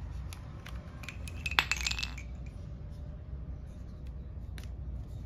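Painted wooden toy construction pieces clacking and knocking together as they are handled. Sparse light clicks are heard throughout, with a quick flurry of knocks and a brief ringing clink between about one and two seconds in.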